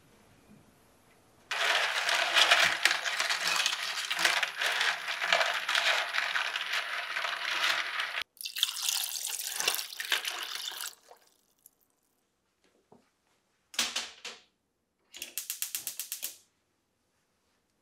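Manila clam (asari) shells being rubbed together by hand in a bowl under a running tap: a dense clattering of shells clicking against each other over running water, washing the clams before cooking. Near the end, a short burst of noise and then a quick run of clicks about a second long.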